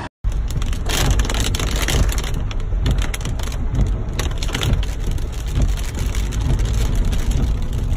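Rain drumming on the windshield and body of a moving car, over a steady low rumble of the car's engine and tyres on a wet road, heard from inside the cabin.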